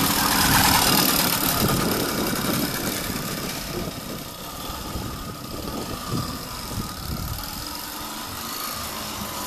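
Freshly rebuilt ZiF-77 moped two-stroke engine running, louder in the first second or so, then settling lower. It has a new piston and rings and is still being run in.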